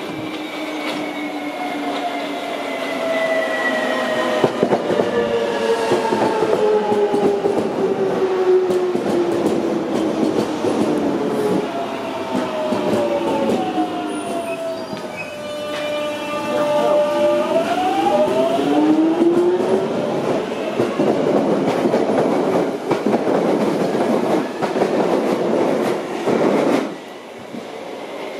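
London Underground electric trains: a motor whine falls steadily in pitch for about fifteen seconds as a train slows, then a rising whine sets in as a train pulls away. Wheels clatter and rumble on the rails throughout, and the rumble stops suddenly near the end.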